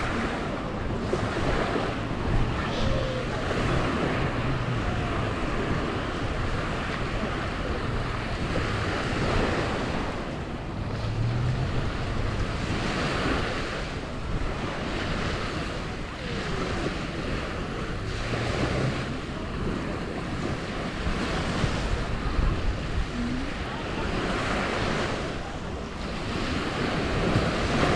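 Sea waves washing onto a sandy beach, the surf swelling and falling back every few seconds, with wind buffeting the microphone.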